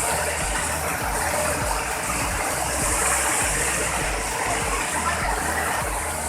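Large waterfall's water rushing and crashing steadily, with an uneven low rumble underneath.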